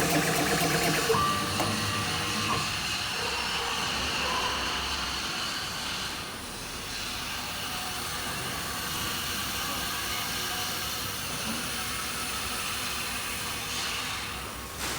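CNC router and CO2 laser combo machine running, a steady hissing machine noise that dips briefly about six seconds in.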